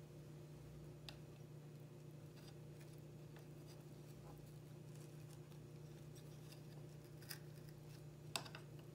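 Near silence: a steady low hum, with a few faint clicks and taps as wooden toothpicks are handled and pushed into a raw carrot, the clearest near the end.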